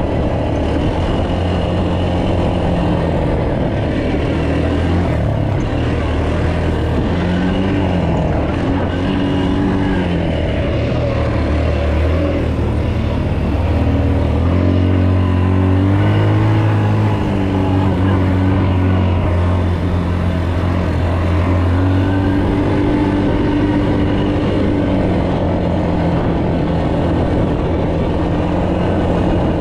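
All-terrain vehicle (ATV) engine running while riding. Its drone rises and falls in pitch several times as the throttle opens and closes.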